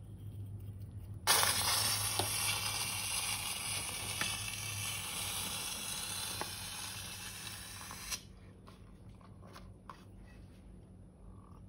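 A steady hiss, like spraying or rushing liquid, that starts suddenly about a second in and cuts off sharply some seven seconds later.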